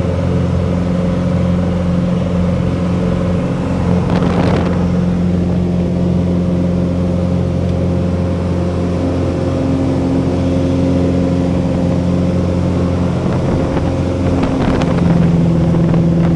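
Cessna 182's six-cylinder Continental O-470 engine and propeller droning steadily, heard from inside the cabin. About fifteen seconds in the engine note steps up in pitch and gets a little louder as power is added, and a few faint knocks come through in between.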